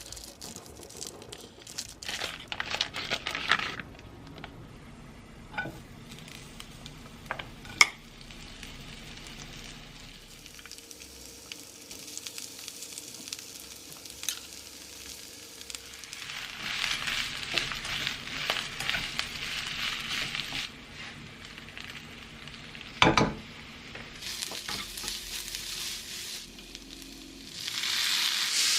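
Food sizzling as it fries in a pan while being stirred, with scattered clicks and knocks of utensils against the pan; two sharp knocks stand out, one about eight seconds in and a louder one later, and the sizzling grows louder near the end.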